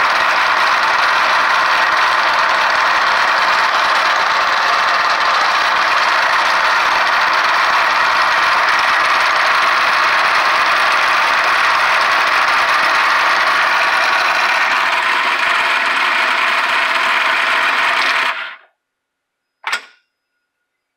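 Elgin turret lathe running under power through its worn snowmobile-belt variable-speed drive: a loud, steady mechanical whirring and rattling. It stops abruptly about 18 seconds in, followed by a single short knock.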